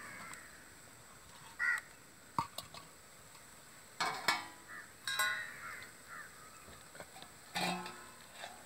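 Crows cawing several times, with a couple of light clicks as an aluminium pot lid is lifted off and set down.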